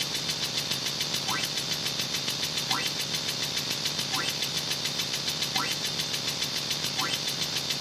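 A sound effect of steady, rapid mechanical chugging, with a short rising chirp about every second and a half.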